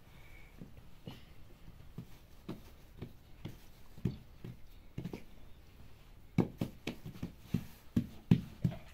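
A series of short, irregular knocks or taps, faint at first, then louder and quicker, about three a second, from about six seconds in.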